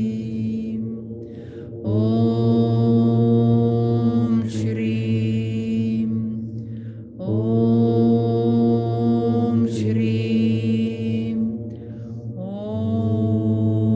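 A woman's voice chanting a mantra in long held tones on one steady pitch, each phrase about five seconds, with a short breath between phrases.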